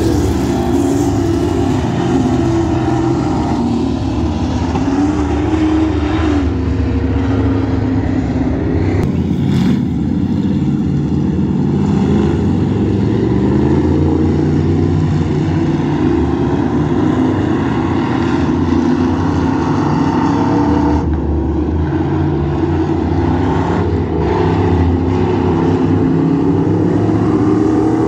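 Several dirt-track stock car engines running hard in a race, overlapping, their pitch rising and falling as the pack accelerates and lifts around the oval.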